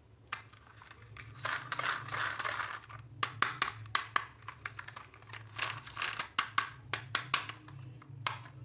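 Handling noise of toy packaging: crinkling plastic for a second or so, then a quick irregular run of sharp clicks and taps, over a steady low hum.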